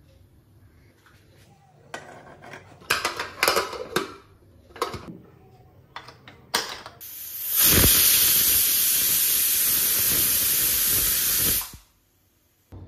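Aluminium pressure cooker's lid and weight clattering into place, then the cooker whistling: a loud, steady hiss of steam blowing out under the weight for about four seconds, cutting off suddenly. The venting is the sign that pressure has built up inside as the dal cooks.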